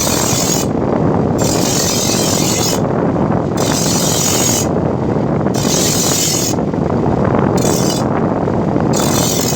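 A power grinder runs steadily while a chaff cutter blade is sharpened on it. A high, hissing grind rises each time the steel edge is pressed against the abrasive, six passes about two seconds apart.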